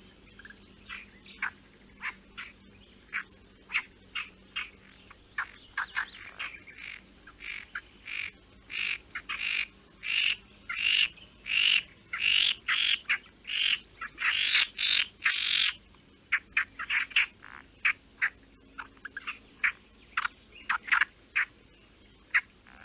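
A bird calling over and over in short separate calls, at times about two a second, loudest and closest together through the middle.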